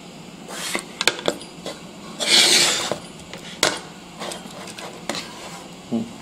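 Handling noise on a workbench: several sharp clinks and knocks of hard parts and tools being moved, with a brief scraping sound about two seconds in.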